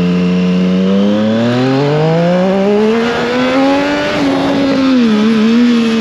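Triumph Street Triple 765 RS's inline three-cylinder engine accelerating on the road: the engine note climbs steadily for about three seconds, wavers briefly about five seconds in, then holds, with wind rush underneath.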